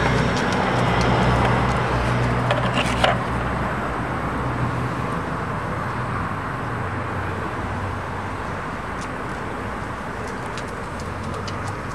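Steady low background rumble with a hum, like a running engine or traffic, easing off slightly, with one short sharp knock about three seconds in.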